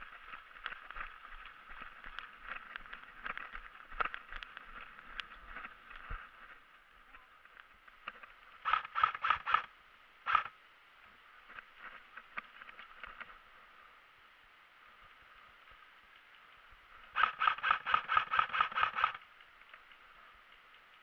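Airsoft rifle firing in rapid bursts: a burst of about five shots about nine seconds in, a single short burst a second later, and a longer burst of about two seconds near the end. Footsteps and gear rattle are heard through the first six seconds.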